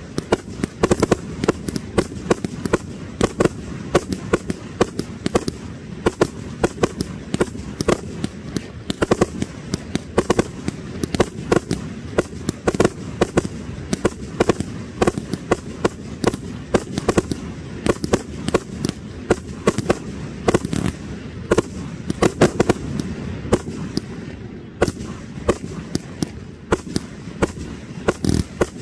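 Fireworks display: a rapid, continuous barrage of bangs and crackles from shells bursting, several reports a second, with a brief lull near the end.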